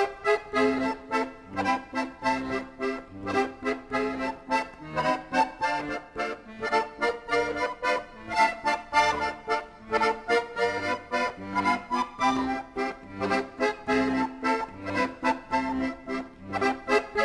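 Accordion music with a steady beat, a melody over a regular rhythmic accompaniment.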